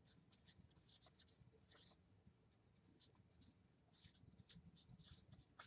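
Faint scratching of a marker pen writing on a whiteboard, in many short strokes.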